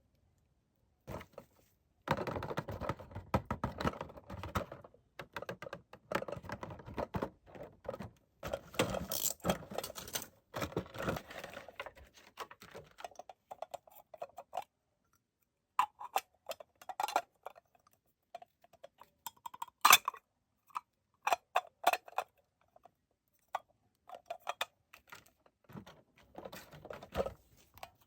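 Packaging handled and unwrapped by hand: dense crinkling and rustling for the first half, then a run of separate sharp, light clicks and taps, with another short rustle near the end.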